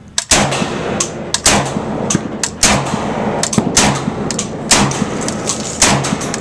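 Saiga 12 semi-automatic 12-gauge shotgun firing rapidly, about ten shots in quick succession at uneven intervals of half a second to a second, each shot followed by ringing echo.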